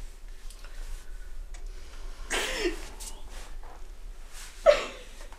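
A woman crying: two breathy sobs, each with a falling voice, the first about two and a half seconds in and a sharper, louder one near the end.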